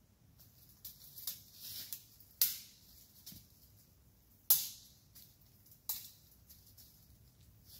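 Scattered sharp rustles and crackles of someone handling a tarp and moving about in dry fallen leaves. The two loudest come about two and a half and four and a half seconds in.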